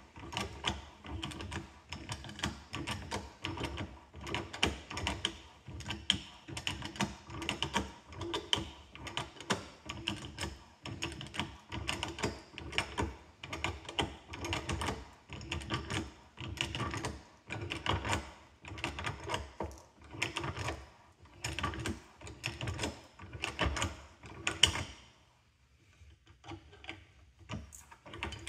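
Ratcheting hand pipe threader clicking as its handle is worked back and forth, the die cutting threads on 1/8-inch pipe. The clicks come in quick repeated runs, pausing briefly about 25 seconds in before starting again.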